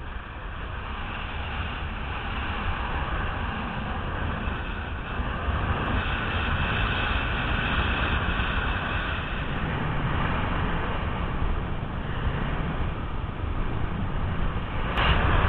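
Wind noise from in-flight airflow over a body-mounted camera's microphone under a speed-flying wing: a steady rush with no engine, and a sharp click near the end.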